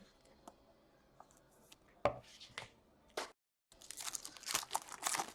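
A foil pack of O-Pee-Chee Platinum hockey cards being handled and torn open: a few light taps, a sharp rip about two seconds in, then dense crinkling of the wrapper and cards near the end, with a brief cut-out of all sound just before it.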